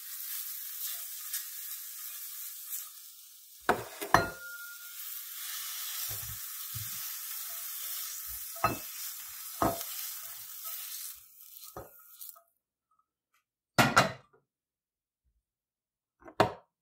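Mushrooms sizzling in a hot nonstick sauté pan while a silicone spatula scrapes them out into a bowl, with several sharp knocks of the spatula against the pan. The sizzle stops about twelve seconds in, and a couple of louder knocks follow.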